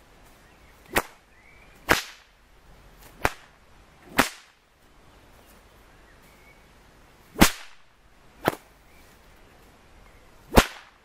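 A whip cracking seven times, each a sharp, loud crack. The first six come in pairs about a second apart: targeted strokes thrown at a candle.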